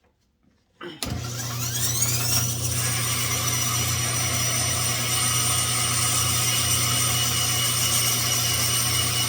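Bandsaw switched on about a second in, its motor whining up to speed over about a second and a half, then running steadily with a low hum.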